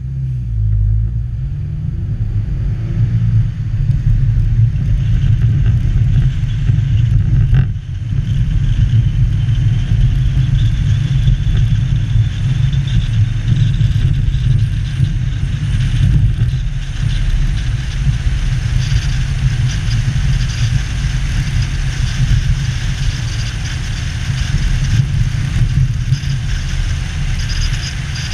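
Car driving on city streets: a steady low engine and road rumble that starts abruptly as it pulls away from a stop and then holds, with a brief dip in level about eight seconds in.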